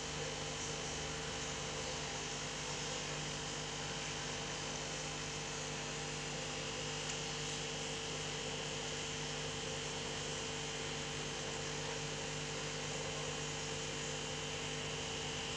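A steady electrical hum over a hiss, holding a few fixed tones without change.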